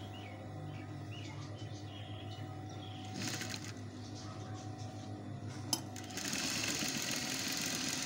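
Electric sewing machine running steadily as it stitches an embroidered lace patch onto a kameez neckline. There is a short click a little before 6 s, and louder rushing noise over the last two seconds.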